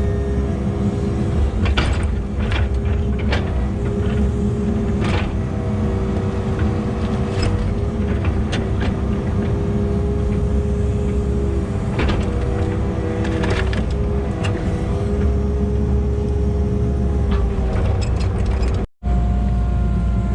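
Kubota KX080 excavator's diesel engine running steadily under work, with scattered sharp metal knocks and clanks.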